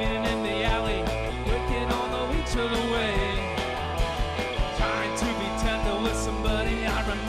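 Live rock band playing an instrumental passage: electric guitars, bass guitar and drum kit, with steady drum hits.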